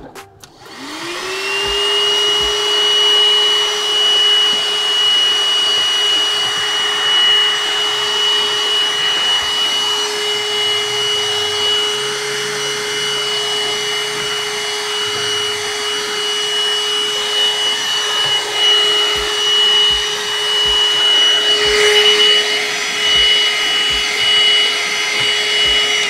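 AGARO CV1079 110-watt cordless handheld car vacuum cleaner switched on. Its motor spins up within about a second to a steady hum with a high whine over rushing airflow. It runs steadily while its brush attachment cleans a car's AC vents.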